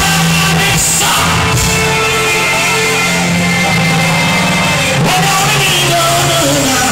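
Live gospel worship music: a band playing with a male singer's voice amplified over the PA, continuous and loud.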